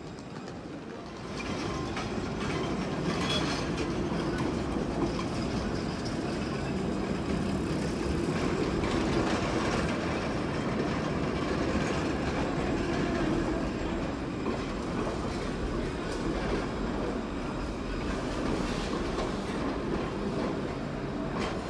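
An Alstom Citadis low-floor tram rolling past close by on curved street track. Its wheels rumble steadily on the rails, growing louder about a second in as it draws near.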